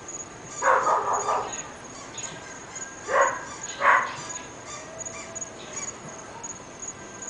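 Dogs barking: a quick burst of barks about a second in, then two single sharp barks a little past three seconds and just before four seconds in.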